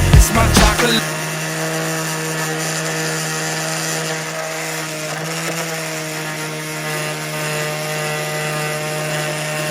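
Electric power sander running steadily on cypress wood: an even motor hum with the rasp of abrasive on wood, starting about a second in.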